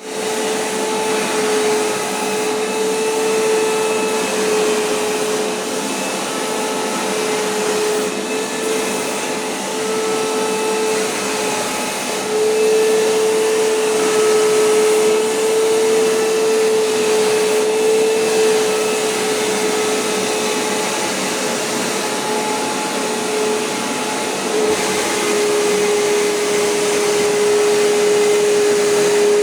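Vacuum cleaner running continuously: a steady whine over rushing air, its level stepping up a little twice.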